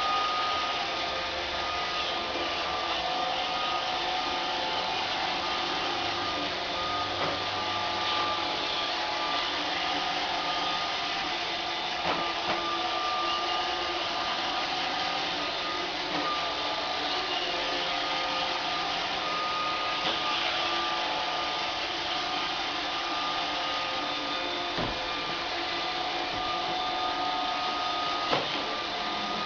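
AMI BB-8 robot vacuum running steadily for dry cleaning, an even motor whir with a thin whine. A few short knocks come through, about midway and twice near the end.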